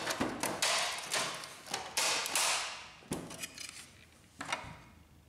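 Plastic side panel of a Canon inkjet printer being worked off its hooks by hand: scraping and rubbing of plastic on plastic, a sharp click about three seconds in, then only faint handling.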